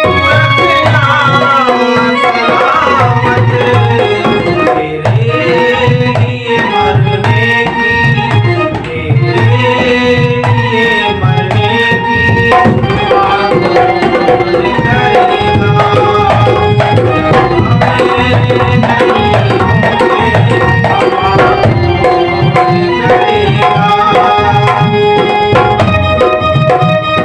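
Instrumental interlude of a Hindi ghazal: tabla playing a steady rhythmic pattern under a melodic instrument line with held and gliding notes.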